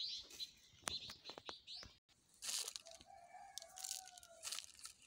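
A rooster crowing once, a steady call of about two seconds starting around halfway through. Before it, small birds chirping and a few sharp clicks.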